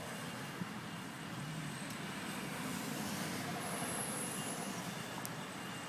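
A vehicle passing: a steady rumble and hiss that swells slightly in the middle.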